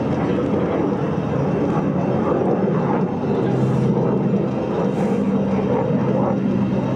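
Jet noise from a U.S. Navy F-35C Lightning II's F135 turbofan engine, a steady loud rumble.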